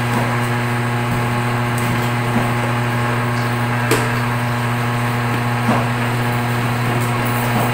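Electric motor of a K.B.I.W heavy-duty semi-automatic paper cutter humming steadily while the machine is powered on. A sharp knock comes about four seconds in and a softer one near six seconds.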